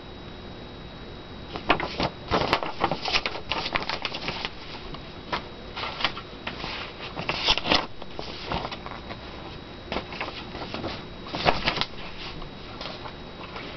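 Paper rustling and crinkling as a large fold-out brochure is handled and folded, in irregular bursts, loudest about two to four seconds in, around seven to eight seconds in, and near eleven and a half seconds.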